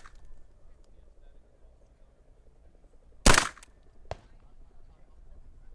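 A WMD Guns 9mm AR-pattern carbine fired once on semi-automatic: a single sharp shot about three seconds in, with a short echo. A much fainter sharp crack follows under a second later.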